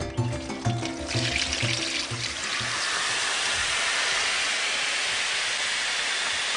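Water poured from a bucket onto an overheating pickup engine, turning to steam on the hot metal: a steady hiss that builds from about a second in. Music fades out over the first couple of seconds.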